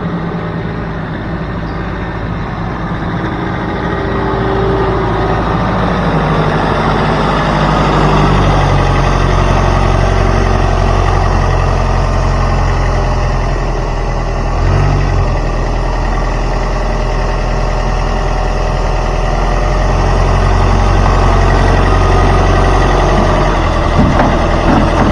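A vehicle engine running steadily. It grows louder a few seconds in, eases off about midway and swells again near the end.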